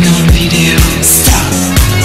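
Loud music with a steady beat of about two beats a second over a bass line, with a cymbal-like crash about a second in.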